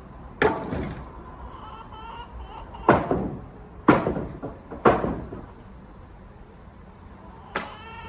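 Four heavy knocks and bangs of wood being pried and broken apart with steel pry bars, the first four or five seconds in. A short squealing creak follows the first knock and another comes near the end.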